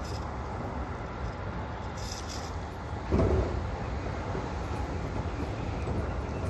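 Toei 5500 series train running at speed, heard from just behind the driver's cab: a steady rumble of wheels on rail. About three seconds in, a sudden, loud, half-second whoosh as a red train passes on the next track.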